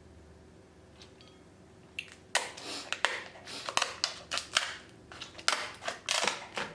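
King crab leg shell being cracked and broken apart by hand: a quick run of sharp snaps and crackles starting about two seconds in.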